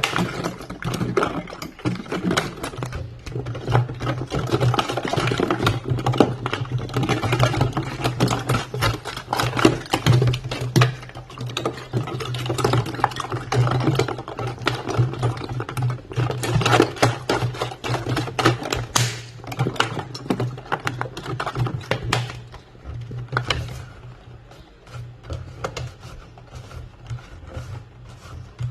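Ice cubes rattling and clinking in water inside a plastic PET bottle: a dense, irregular run of clicks and knocks that thins out after about 23 seconds, over a steady low hum.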